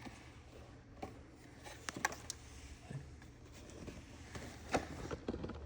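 Small handling noises from wire-harness parts being worked by hand: a few scattered sharp clicks and taps, the loudest about five seconds in, over a faint steady hum.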